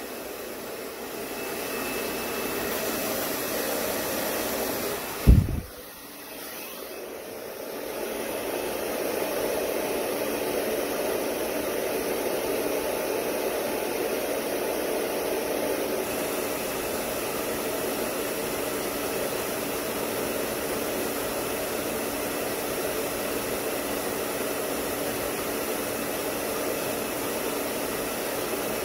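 Handheld hair dryer blowing steadily. About five seconds in there is a sharp thump, and the dryer sound drops for a couple of seconds before coming back to full strength.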